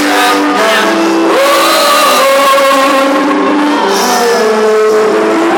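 Live rock band playing loud music, with electric guitar and held notes, some sliding in pitch.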